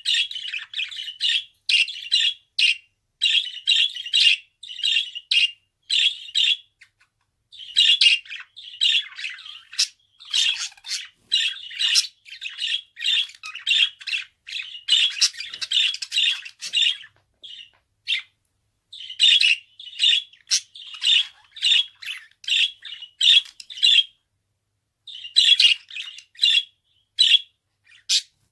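Budgerigar chattering in a quick string of short chirps and squawks, several a second, broken by a few brief pauses.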